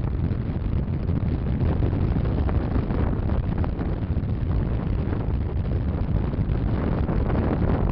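Strong wind buffeting the microphone on a moving motorcycle, a steady low rumble with the ride's engine and road noise underneath.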